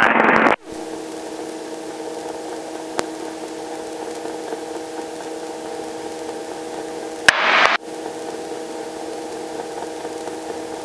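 Robinson R22 helicopter in flight, heard in the cabin audio: a steady hum of several tones over a hiss. Near the start and again about seven seconds in, a loud rushing noise cuts in and stops abruptly with a click.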